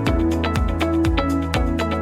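Background music with a steady beat: a deep kick drum about twice a second with quick high ticks between, under held notes.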